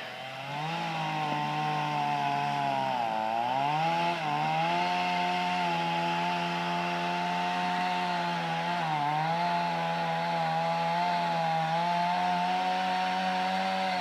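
Chainsaw running under load, cutting into a large dead tree for felling. Its engine pitch sags briefly about three seconds in and again around nine seconds, then picks back up.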